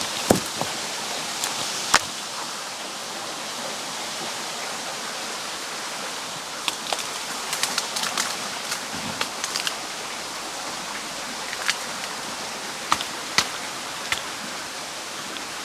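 Steady rushing outdoor noise, like running water, with scattered short sharp snaps and clicks.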